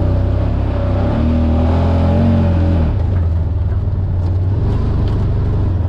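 Utility vehicle's engine running as it drives, a steady low drone whose revs rise from about a second in and ease off at about three seconds.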